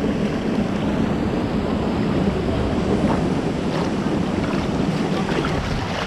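Water sloshing and splashing against an action camera held at the surface on a selfie stick while a person swims, a steady rushing noise with a few small splashes.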